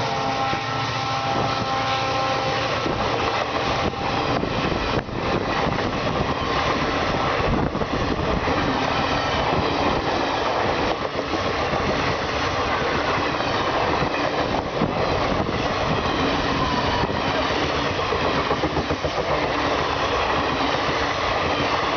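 A passenger train's coaches rolling steadily past, wheels clattering over the rail joints in a continuous clickety-clack. During the first few seconds a steady pitched engine note, likely the EMD WDP-4 diesel locomotive moving away, fades under the rolling noise.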